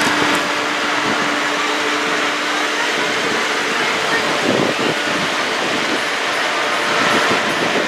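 Diesel engine of a large New Holland farm tractor running steadily under heavy load as its tyres churn through deep mud.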